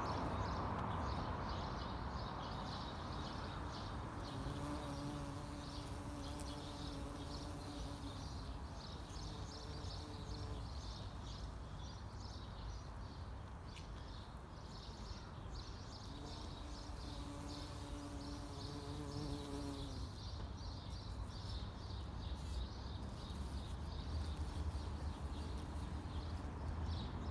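Bumblebee buzzing in two spells, one of about six seconds beginning about five seconds in and one of about four seconds later on, over continual small-bird chirping and a steady low city rumble.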